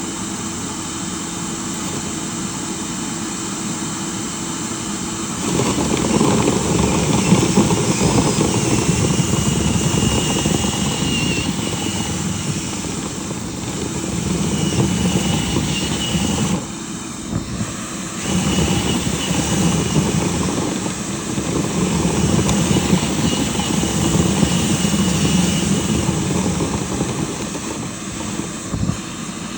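Dryer vent cleaning equipment running with a steady motor noise. It gets louder and rougher about five seconds in, carries a faint high whistle, and drops briefly for a second or two around the middle.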